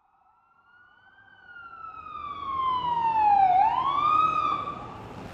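Police siren wailing as it fades in, its pitch sliding slowly down, then sweeping quickly back up about three and a half seconds in before fading away near the end.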